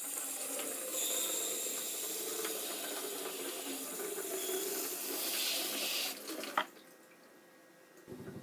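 Water spraying from a spray head into a plastic flower-pot sink and running down its newly fitted drain, a steady splashing that stops about six seconds in. A single short click follows soon after.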